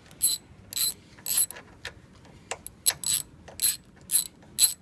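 Ratchet clicking in repeated strokes, about two a second, backing out a brake caliper slide bolt.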